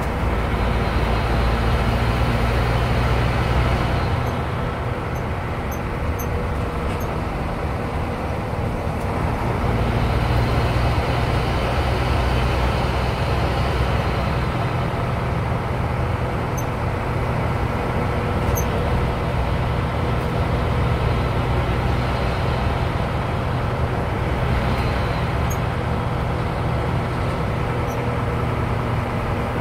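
Bus engine and road noise heard from inside the cab while driving, a steady low drone that eases off about four seconds in and builds again near ten seconds.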